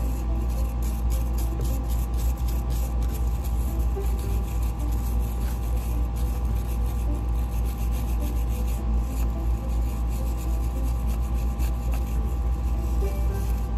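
Steel wire brush scrubbing the metal tube-end face of a Yanmar 4JH5E diesel's heat exchanger, a run of quick scratchy strokes that are busiest in the first few seconds. A steady low hum runs underneath throughout.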